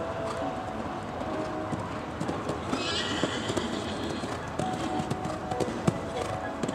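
Hoofbeats of a grey Selle Français mare cantering on a sand arena, with one sharper thud about six seconds in as she takes off over a fence.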